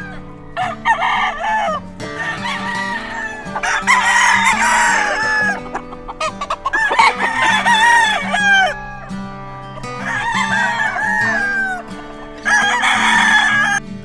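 Game roosters crowing repeatedly, about five crows, some overlapping, with clucking between them.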